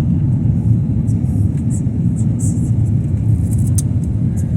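Jet airliner cabin noise: a steady low rumble of the engines and airflow, with faint scattered high rustles and ticks on top.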